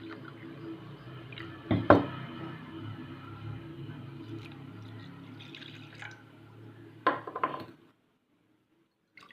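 Water being poured from a small glass into a cooking vessel for an herbal decoction. There is a sharp knock about two seconds in and another near the end, then the sound cuts off abruptly.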